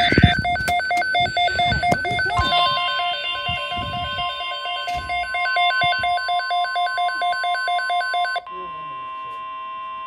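A NOAA weather radio going off for an alert: a rapid pulsed electronic beeping, joined about two and a half seconds in by the steady 1050 Hz warning alarm tone. The beeping stops about eight seconds in, leaving the alarm tone alone and quieter, which signals the Severe Thunderstorm Watch broadcast that follows. A few handling clicks and knocks come from the radio near the start.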